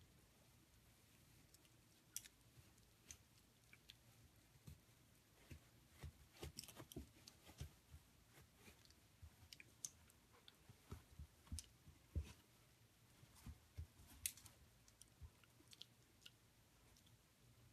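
Faint, irregular crunches and clicks of a long-haired dachshund chewing and gnawing on a plush rope toy whose stuffing is being torn out.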